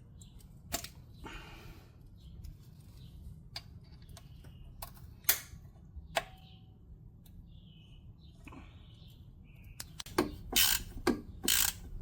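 Scattered clicks and light metal taps of hand tools, then near the end a ratchet wrench clicking in short back-and-forth runs as a bolt is worked into the rechased threads of the automatic transmission pan.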